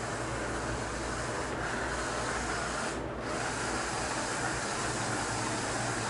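Philips SmartPro Compact FC8776/01 robot vacuum running on a hard floor: a steady whir and hiss of its suction fan and spinning side brushes. The hiss briefly dips about three seconds in.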